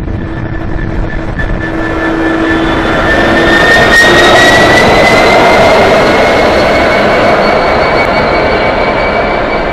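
Class 66 diesel-electric locomotive passing close by on its own, its two-stroke V12 diesel engine running under a high whine that rises slightly in pitch. It is loudest as the locomotive draws level about four seconds in, then eases a little as it moves on.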